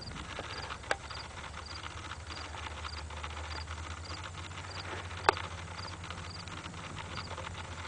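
Insect chirping steadily, a short high chirp about twice a second, over a low hum. A sharp click comes about one second in, and a louder one about five seconds in.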